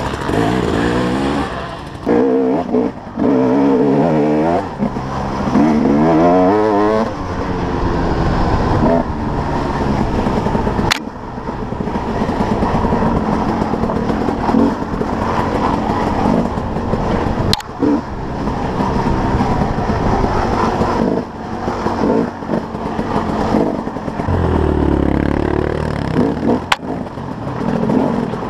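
2011 KTM 300 XC-W two-stroke dirt bike engine being ridden, its pitch rising and falling as the throttle is worked on and off. A few short sharp knocks cut through it at intervals.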